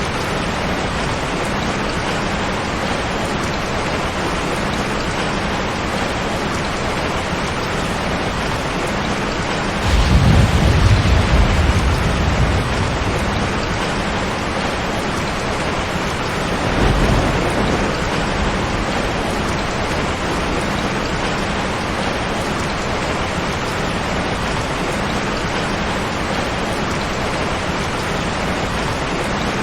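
Heavy rain falling steadily on a tin roof, with a low rumble of thunder about ten seconds in and a shorter one several seconds later.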